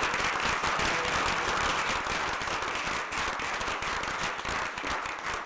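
Small room audience applauding steadily, a dense run of many hand claps.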